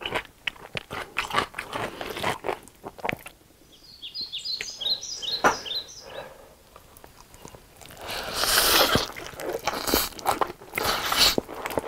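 Close-miked eating of Spam wrapped in black bean noodles: scattered mouth clicks and small handling ticks, then a big bite and loud chewing from about eight seconds in.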